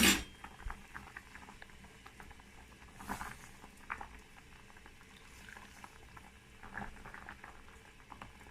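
Hot orange-peel water making faint bubbling and splashing liquid sounds, with many small scattered ticks and a few louder clinks as peel and water are scooped out.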